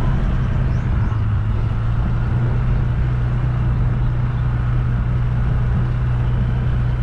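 Engine of the vehicle being ridden, running at a steady speed with an even low drone, over a haze of road and wind noise.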